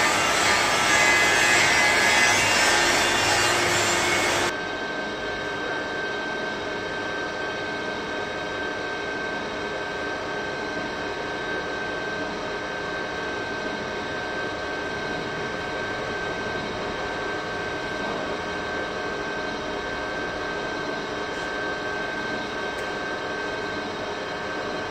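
Steady machine drone with several held tones. It follows a louder, hissing rush that cuts off abruptly about four and a half seconds in.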